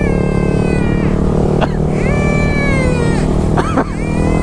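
A duck call blown in three long, drawn-out notes, each held about a second and bending down in pitch at the end, over the steady drone of motorcycle engines cruising.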